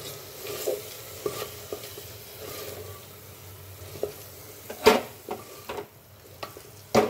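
Wooden spatula stirring and scraping spice masala around the inside of an aluminium pressure cooker, the paste sizzling in hot oil, with two sharp knocks of the spatula against the pot, about five and seven seconds in.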